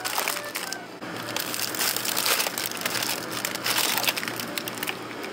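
Plastic food packaging crinkling and crackling as it is handled: a foil-lined bag of frozen edamame and plastic-wrapped packs of frozen udon. The crinkling gets louder and denser about a second in.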